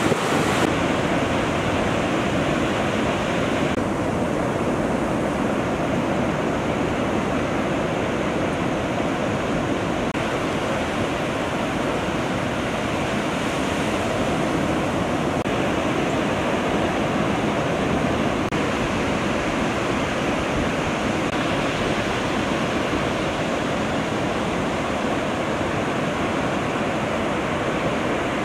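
Ocean surf: a steady rush of waves breaking and washing in, shifting slightly in tone a few times.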